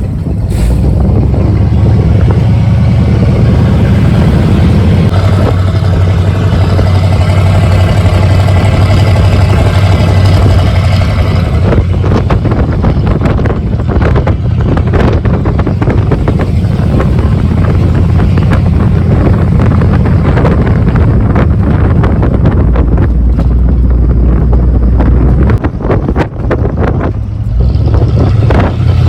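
1982 Ford F-150's 302 V8 running loud through a 3-to-4-inch step exhaust while the truck is driven at low rpm, a deep drone that shifts in pitch with the throttle. The sound dips briefly near the end.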